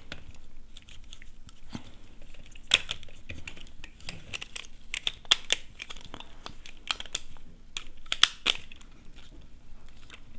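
Irregular sharp plastic clicks and snaps as switch and socket modules are pressed by hand into a plastic switch board plate, with a few louder snaps and the rustle of plastic being handled in between.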